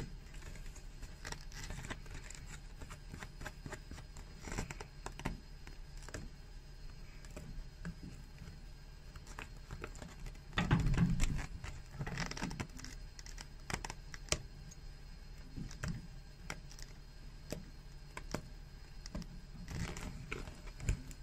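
A steel pick scratching and snagging under old welt stitches as the threads are picked and pulled out of a leather shoe, giving irregular small clicks, scratches and tearing sounds. There is a louder, duller rub or knock lasting about a second about halfway through.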